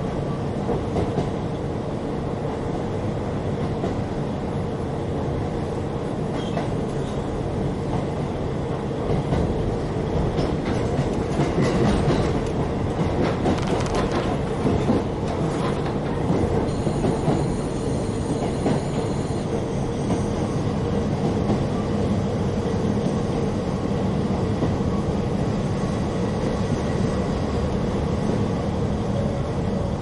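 Interior running sound of a KiHa 40 diesel railcar: its N-DMF13HZI diesel engine drones steadily under way, with wheels clattering over rail joints, busiest from about a third to halfway through. A faint high wheel squeal joins a little past halfway.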